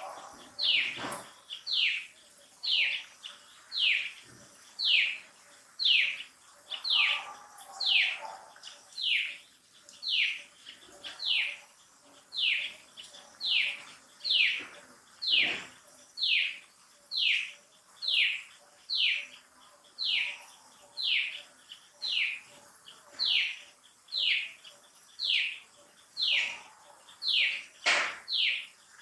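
A high, short call that falls in pitch, repeated steadily about once a second throughout, with a few sharp knocks, the loudest near the end.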